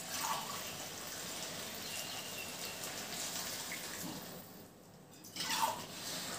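Water poured from a steel tumbler into a pressure cooker of rice and chickpeas, a steady pouring splash that stops about four and a half seconds in, followed by a short louder sound a second later.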